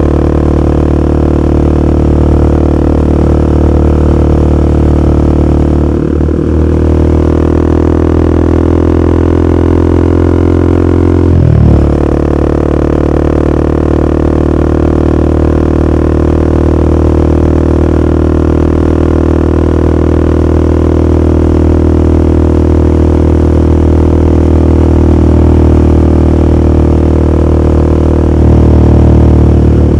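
Royal Enfield Himalayan 450's single-cylinder engine running through a ZARD aftermarket exhaust with the baffle removed, on the move at steady throttle. The note breaks briefly twice, about six and eleven seconds in, and otherwise holds steady.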